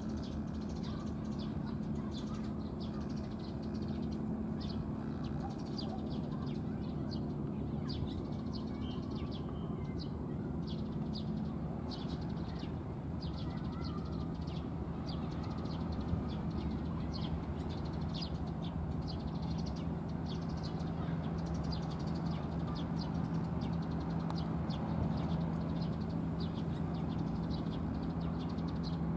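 Outdoor ambience: many small birds chirping over a steady low hum.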